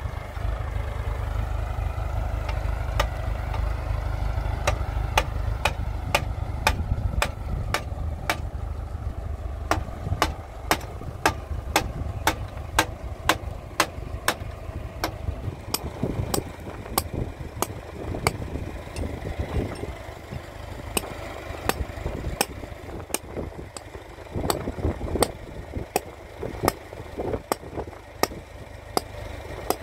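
Tractor engine running steadily, with a run of sharp knocks about twice a second from a few seconds in.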